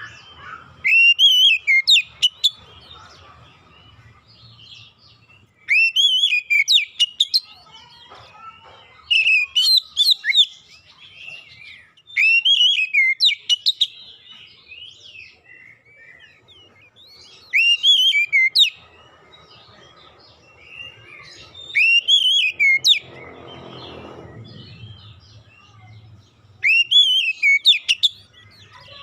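Oriental magpie-robin (kacer) singing in short, loud whistled phrases of sharply rising and falling notes, seven phrases about four to five seconds apart.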